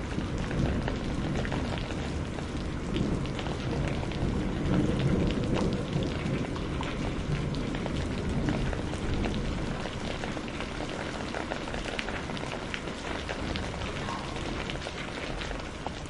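Steady rain falling, with a dense patter of individual drops, and a low rolling rumble of distant thunder that swells through the middle and fades.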